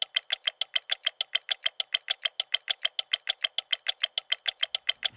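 Rapid, evenly spaced ticking, about seven crisp ticks a second, like a fast clock or timer.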